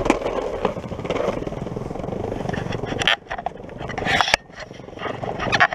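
Longboard wheels rolling over brick paving: a steady, rattling rumble from the block joints. Several sharp knocks come near the middle and end, with sudden brief drops in the rumble after three and after four seconds.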